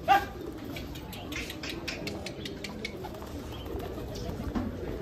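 Flock of Hyderabadi pigeons in flight, wings flapping and clapping in a quick run of claps between about one and two and a half seconds in. A brief loud gliding cry sounds right at the start.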